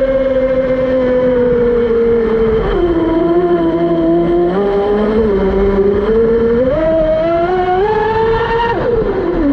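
Twin GoolRC 2968 3400 KV brushless motors of an RC catamaran whining under throttle over a steady rushing noise. The pitch dips about two and a half seconds in, climbs steadily from about six and a half seconds, then drops sharply near the end as the throttle comes off.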